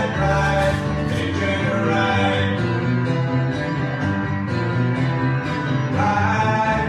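Live music from a two-piece band, led by guitar.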